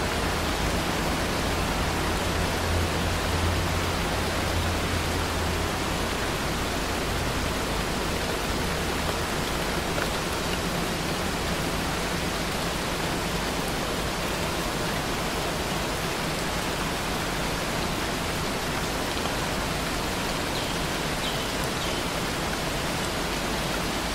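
Steady rain falling hard, an even hiss with no let-up, with a low rumble underneath in the first few seconds.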